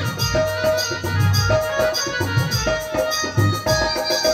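Instrumental break in a live Maithili folk song: a melodic instrument repeats a short held-note phrase over regular hand-drum beats and a shaker-like rattle, with no singing.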